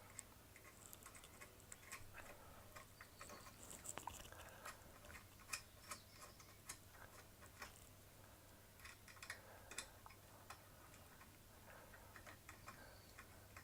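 Faint, irregular small clicks and ticks of a small metal set screw and its tools being handled, over a faint steady low hum.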